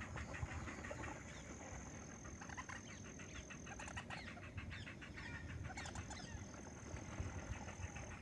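Many birds calling over one another in short, overlapping calls, over a steady high-pitched thin tone.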